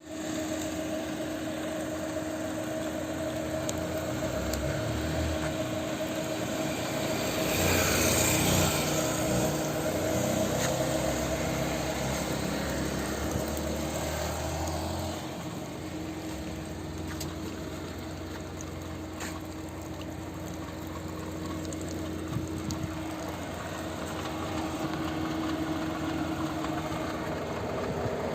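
Chevrolet Onix Plus's naturally aspirated three-cylinder engine running with a steady hum, louder for several seconds near the middle. It carries an intermittent engine noise the owner finds strange, which the dealer's mechanic calls normal for a three-cylinder.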